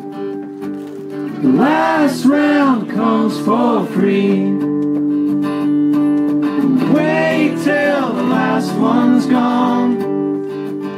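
Live acoustic band playing: acoustic guitars strummed over a bass guitar, with a melody line that swoops up and down in pitch, twice, about two and seven seconds in.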